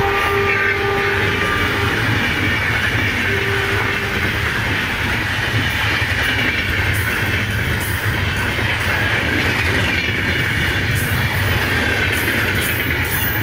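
Passenger coaches of an Indian Railways express train rolling past at speed: a steady rumble and wheel-on-rail noise with occasional wheel clacks. A train horn sounds over the first couple of seconds and briefly again about three seconds in.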